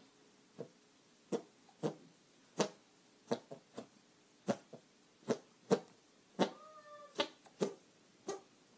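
A series of sharp, irregular taps, roughly two a second, with a brief squeaky pitched note about two-thirds of the way through.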